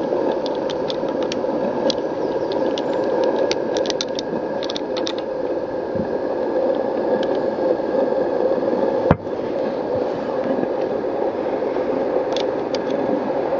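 Two propane gas burners firing under the boiler of a live-steam 1-inch scale Case traction engine model, a steady rushing hiss while steam pressure is raised. Scattered light clicks over the first five seconds, and one sharp click about nine seconds in.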